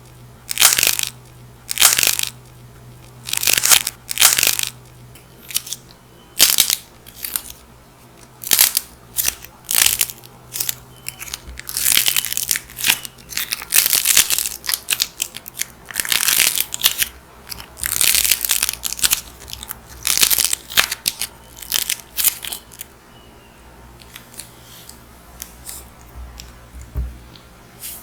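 Dried clay being cracked and crushed, a run of crisp crackling crunches roughly once a second. The crunches stop about 23 seconds in, leaving only faint crackles.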